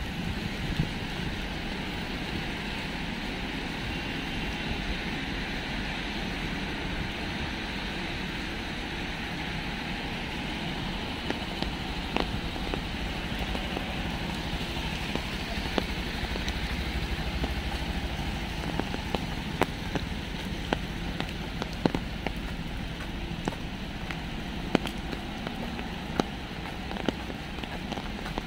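Steady rain on a city street, with traffic passing on the wet road. Scattered sharp taps come through close by throughout.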